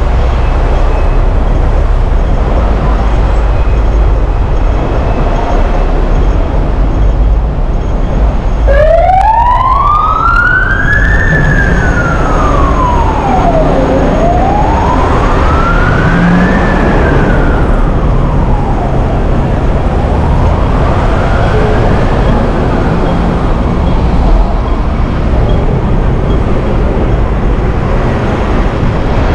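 Emergency vehicle siren wailing, a slow rise and fall repeated three times from about nine seconds in, growing fainter each cycle, over a steady low rumble of traffic.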